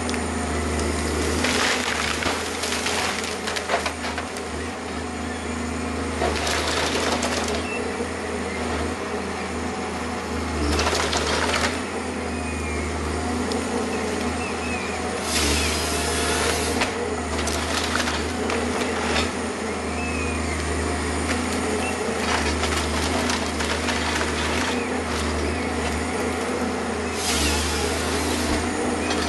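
Rottne H14 harvester's diesel engine running steadily under hydraulic load while the SP 561 LF harvester head works a stem. Several loud bursts of about a second each are the head's hydraulic chain saw cutting through the wood. Between them come knocks and rattles of the head gripping the stem and feeding it through.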